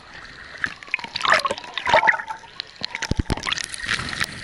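Seawater splashing and gurgling around a handheld camera as it is dipped under the surface and brought back up, with three short dull knocks a little past three seconds in.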